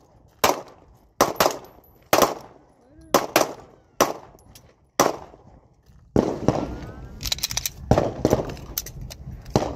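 Glock 19 9mm pistol shots, each a sharp crack with a short ringing tail, fired singly about a second apart. From about six seconds in, the shots come quicker and closer together.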